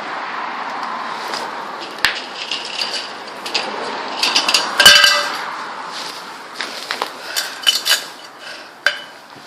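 Metal pieces clinking and clanking as they are handled, with one loud ringing clang about five seconds in, over a steady rush of gale wind.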